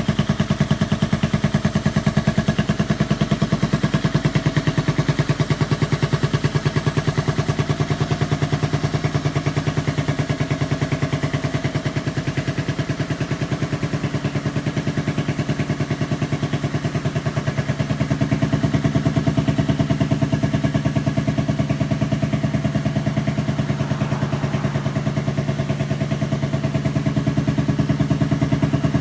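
Yamaha Grand Majesty scooter's single-cylinder four-stroke engine running at or near idle through an OVER aftermarket exhaust, a steady even exhaust pulse, slightly louder from around eighteen seconds in.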